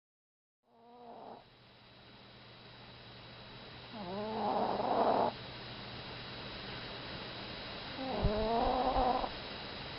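A chihuahua snoring in its sleep: three snores a few seconds apart, the first short and faint, the next two longer and louder, each with a wavering pitch.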